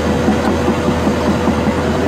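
Crawler excavator's diesel engine running steadily under load, with the steel tracks clanking rapidly as they grind through the dirt.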